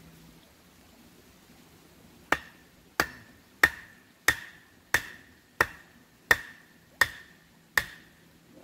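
Nine sharp chopping blows on wood, about two-thirds of a second apart, starting about two seconds in, each with a brief ring.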